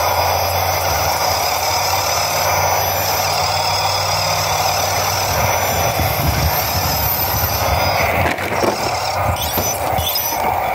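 Small electric motors and gear drives of RC rock crawlers whining as they climb rock, the pitch rising and falling with the throttle. After about eight seconds come a few knocks and scrapes as one crawler tips over on the rock.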